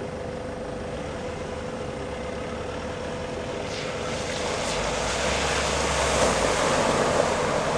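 Four-wheel drive's engine running as it climbs a muddy bush track toward the listener, growing louder from about halfway through as its tyres push through mud and water.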